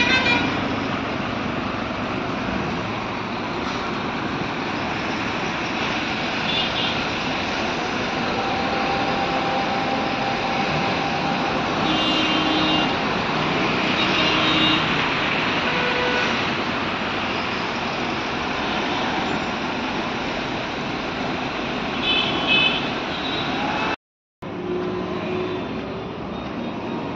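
Steady hum of slow, jammed road traffic on a mountain highway, engines of cars, buses and trucks running, with short vehicle horn honks about a dozen seconds in, again a couple of seconds later and near the end.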